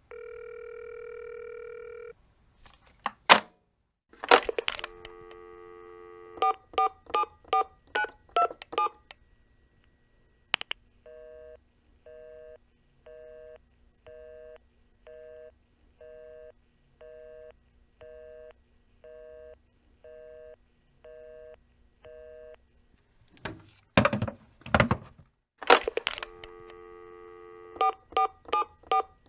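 Telephone line sequence: a steady dial tone, then handset clunks and another dial tone, then about eight push-button touch-tone digits dialled. A run of even beeps about once a second follows, then the handset is clunked down and picked up again. The dial tone returns and dialling starts again near the end.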